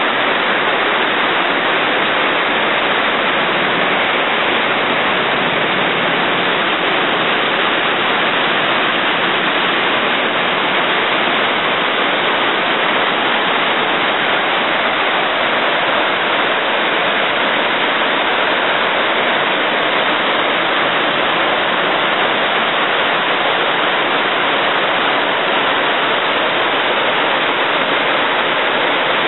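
River rapids rushing over and between rocks, a loud, steady roar of white water with no let-up.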